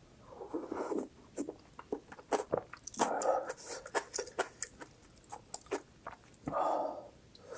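Close-miked eating of spicy instant noodles: three slurps a few seconds apart, with wet chewing and sharp mouth-smacking clicks between them.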